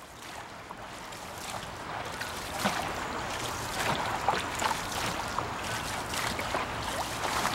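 Dragon boat paddles stroking and splashing in the water right beside the hull, with water washing along the boat's side; it grows louder over the first two seconds.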